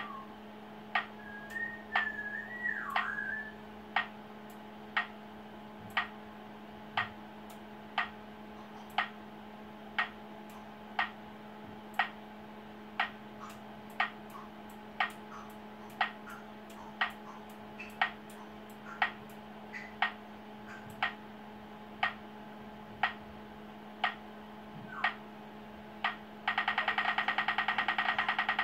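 Acoustic signal generator for blind pedestrians on a traffic signal, ticking about once a second: the slow locator tick given while the pedestrian light shows red. Near the end it switches to a fast, louder ticking as the pedestrian light turns green. A steady low hum runs underneath, and a few short whistle-like chirps sound in the first few seconds.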